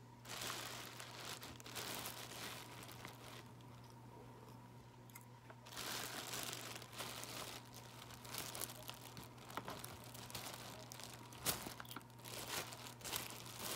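Crab legs being cracked open and picked apart by hand, with packaging crinkling: stretches of crackling and crunching near the start and again about six seconds in, then scattered sharp snaps and clicks.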